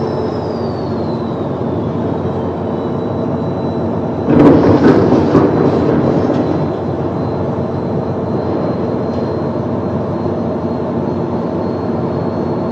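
Steady boat-engine drone on the river, with a louder burst of noise about four seconds in that lasts around two seconds.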